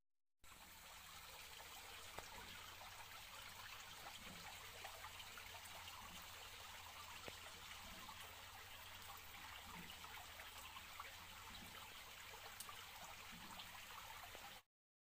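Faint, steady trickle of water splashing from a PVC pipe outlet into a fish tub, with scattered small ticks. It starts about half a second in and cuts off just before the end.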